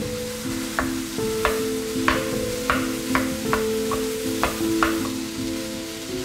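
Wooden spatula stirring and scraping rice and vegetables around a nonstick wok, about ten sharp strokes at roughly two a second, over the sizzle of the stir-fry.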